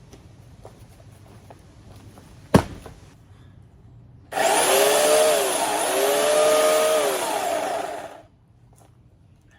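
Bauer 16-inch 14.5-amp corded electric chainsaw running for about four seconds, its motor whine dipping in pitch twice as the chain loads up cutting a branch, then winding down. A single sharp knock comes a little more than a second before it starts.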